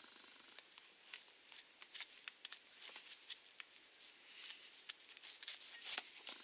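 Faint scattered clicks and light scraping of a utility-knife blade working against a plastic drill trigger switch, prising its top piece off, with one louder click about six seconds in.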